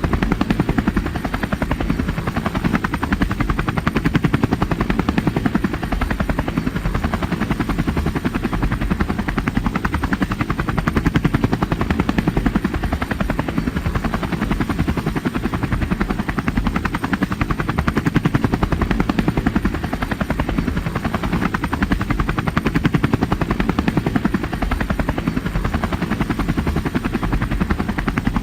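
Helicopter flying, its rotor blades beating in a fast, steady chop over the engine's whine, at a constant level.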